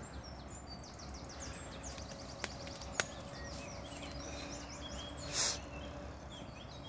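Birds chirping and singing, many short high calls, over steady outdoor background noise. Two sharp clicks come about halfway through, and a brief rush of noise about three quarters of the way in.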